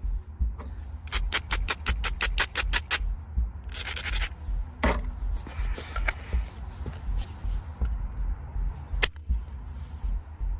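Stone knapping on ringy limestone: a quick run of about a dozen sharp, ringing ticks, then a short scrape, a single sharp crack, more scraping, and one more click near the end.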